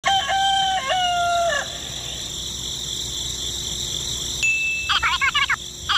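A rooster crows once, a single call of about a second and a half that falls in pitch at the end. Near the end, fast, high chirping calls start up. A steady high hiss runs underneath.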